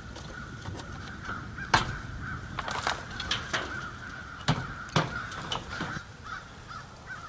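Crows cawing, with several sharp knocks scattered through, the loudest about two seconds in.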